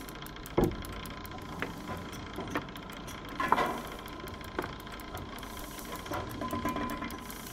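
Sharp knocks or clicks, about one a second, the loudest about halfway through, over a steady hiss.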